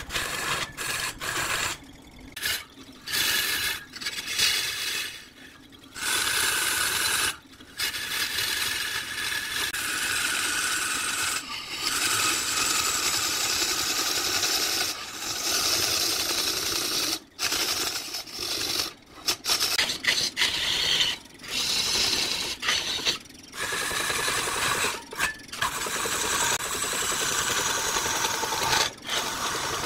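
Turning tool cutting into a spinning wood block on a lathe: a continuous scraping hiss, broken by many short breaks.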